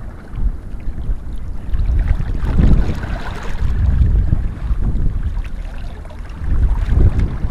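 Wind buffeting the microphone in uneven gusts, a low rumble that swells strongest about three seconds in and again near the end.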